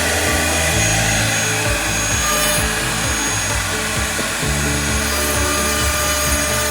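Background music with low bass notes that change every second or so, over a dense, even hiss.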